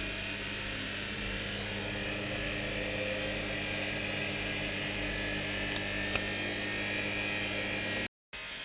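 Old washing-machine motor running steadily at speed under its controller, a constant hum with a whining hiss. It cuts out for a moment near the end.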